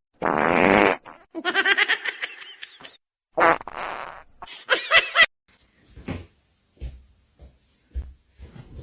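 A loud fart-like blat followed by laughter, heard twice over, then a few soft thumps.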